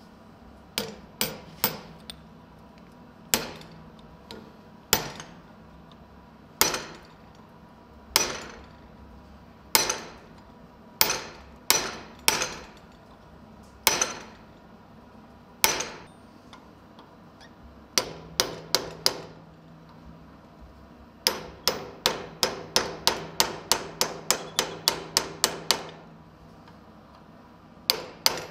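Hammer blows on a hand-held punch set against red-hot steel, each blow a sharp metallic ring. Single blows come a second or two apart at first; in the second half they come in quick runs of about four a second.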